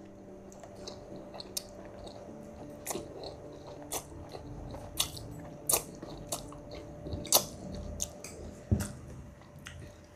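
Two people eating spicy instant noodles: chewing and slurping, with short wet smacks and clicks of the mouth coming at irregular intervals.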